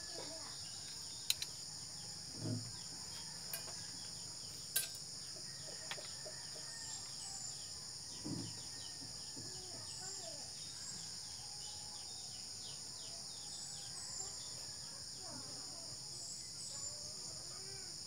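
Steady high-pitched insect chorus, with a few sharp clicks and a couple of dull knocks from hands handling speargun parts.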